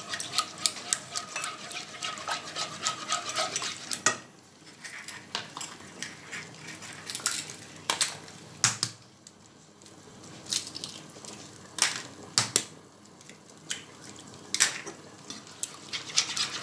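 A metal utensil beating eggs into a warm chocolate cake batter in a non-stick saucepan, with irregular clicks and taps against the pan and a wet stirring sound. The strokes ease off from about 4 s and pick up again near 10 s.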